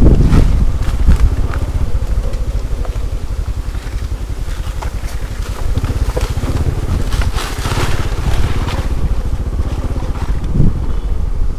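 A vehicle engine running steadily, with a heavy, continuous low rumble.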